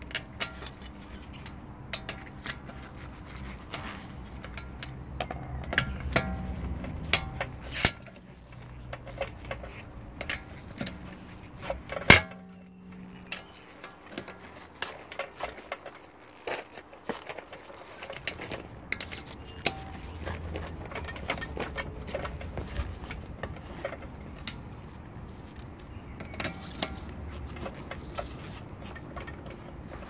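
Hand tools on car wheel bolts: a socket and breaker bar being fitted and worked on the bolts, giving a run of metallic clicks and clinks. About twelve seconds in comes one loud, sharp metallic knock that rings on briefly.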